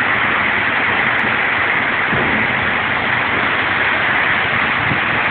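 Heavy storm rain, a steady, dense hiss, pouring down on a flooded street during a hailstorm.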